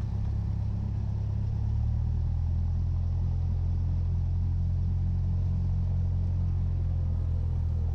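Cessna 172's piston engine and propeller droning steadily, heard in the cabin, at taxi power as the plane turns onto the runway for takeoff. The pitch steps up slightly about two seconds in.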